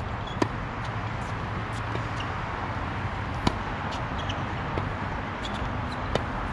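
Tennis rally on a hard court: a ball struck by racquets with sharp pops about every three seconds, the strongest near the end, with fainter ticks of the ball bouncing between. A steady outdoor hiss runs underneath.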